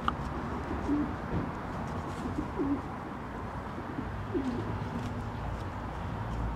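A pigeon cooing in the background: several short, low coos spread across a few seconds.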